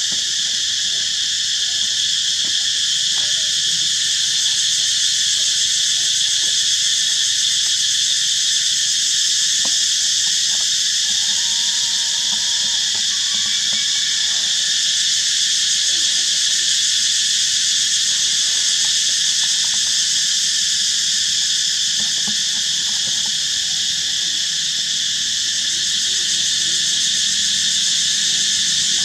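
Steady, high-pitched chorus of insects, continuous and unchanging.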